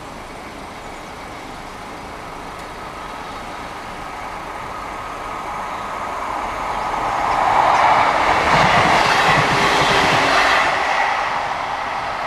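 Passenger train approaching and passing at speed. The rumble of its wheels on the rails grows over several seconds, is loudest with a rapid clatter around two-thirds of the way through, then begins to fade.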